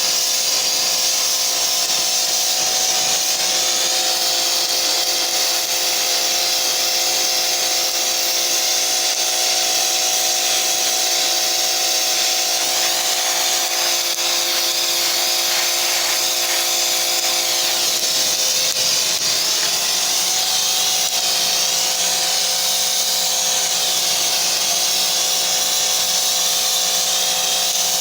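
Small pressure washer running with a sandblasting nozzle: a steady high hiss of spray over the machine's steady motor hum, whose tone shifts slightly about two-thirds of the way through.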